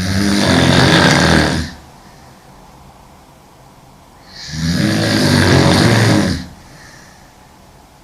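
A woman snoring loudly in her sleep, lying on her back. There are two long snores, each about two seconds, some four seconds apart, with quiet breathing between them.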